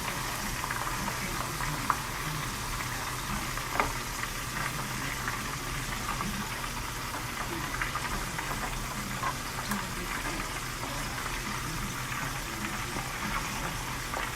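Chicken livers deep frying in hot oil: a steady sizzle, with a few sharp pops about two and four seconds in.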